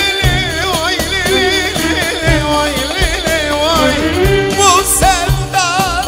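Live Turkish folk (türkü) band playing a dance tune: a wavering, ornamented melody line over a steady drum beat.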